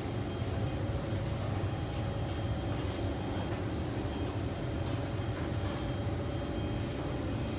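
Kawasaki C151 metro train heard from inside the car, its wheels and running gear making a steady rumble with a faint whine, as it pulls into the station.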